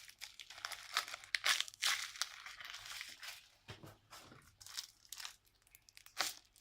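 Irregular crinkling and crackling of paper and tape as homemade paper squishies are handled and squeezed.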